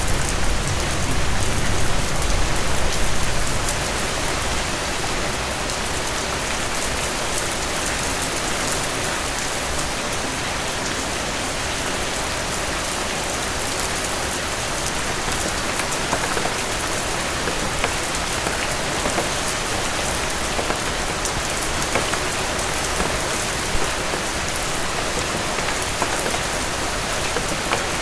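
Steady rain falling on a surface, with many individual drops ticking close by. A low rumble of thunder dies away about three and a half seconds in.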